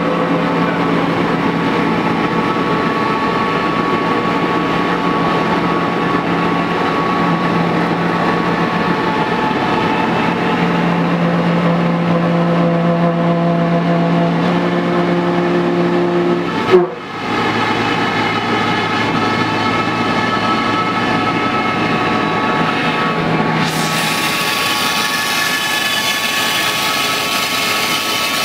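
CNC router spindle running while its bit carves a block of white foam, a steady whine and rushing noise whose pitches shift now and then as the head moves. One sharp click comes a little past halfway, where the sound changes.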